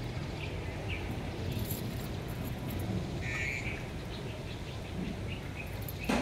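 A few short, high chirping animal calls, the longest about three seconds in, over a steady low background hum, with a sharp click near the end.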